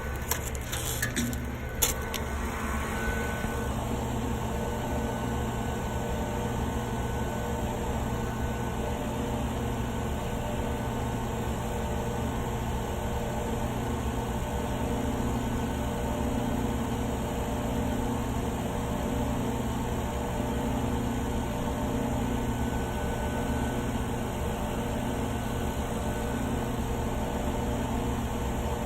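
Steady mechanical hum of the vacuum pump running while it holds the part under vacuum for a leak test, with a few light clicks in the first two seconds.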